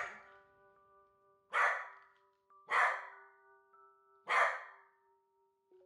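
A corgi barking three times, about a second apart, over soft background music with held notes.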